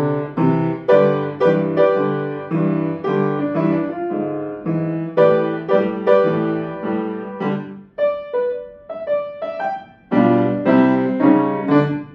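Grand piano played solo in a blues-style piece: a steady rhythm of repeated chords, thinning to a few sparse single notes about two-thirds of the way through before full chords return near the end.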